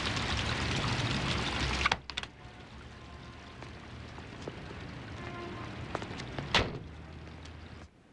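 Fountain water splashing loudly, stopping abruptly about two seconds in. Then a quieter low rumble of a car, with a single sharp knock of a car door shutting about six and a half seconds in.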